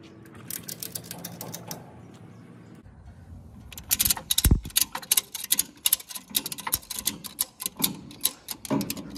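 Ratchet strap buckle being cranked to tighten the webbing: the pawl clicks in quick runs with each stroke of the handle, a few clicks about half a second in and a longer, louder run from about four seconds on. One dull thump about four and a half seconds in.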